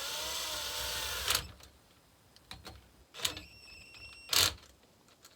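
An aerosol spray can hissing in one burst of about a second and a half. Then, about three seconds in, a light metal clink that rings briefly, and a louder knock about a second later.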